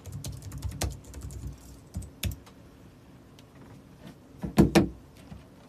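Scattered clicks and taps of typing on a computer keyboard, with a louder short clatter of a few quick hits about four and a half seconds in.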